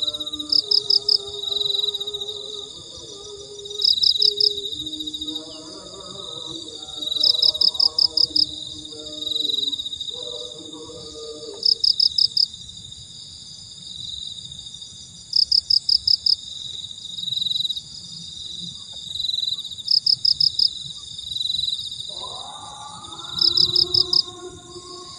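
Evening insect chorus: a steady high-pitched drone with a loud trill of quick pulses repeating every three to four seconds. Soft background music with held notes plays under it through the first half and again near the end.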